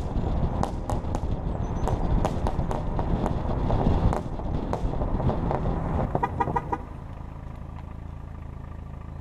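A car driving along a road, picked up by a camera mounted on the outside of the car beside the door mirror, so engine, tyre and wind noise all reach the microphone, with many sharp knocks. About seven seconds in the sound drops to a quieter, steadier hum.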